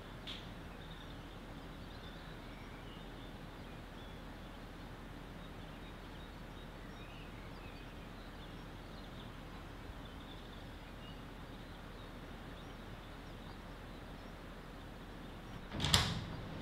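Quiet room tone with faint scattered high chirps, then near the end a sudden loud knock with a short scrape.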